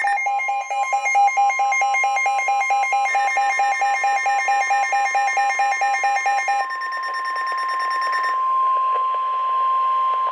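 NOAA Weather Radio warning alarm: a steady 1050 Hz tone, layered at first with a weather radio receiver's rapid pulsing alert beeps that stop about two-thirds of the way through. The tone cuts off sharply at the end. It signals that a warning broadcast follows, here a tornado warning.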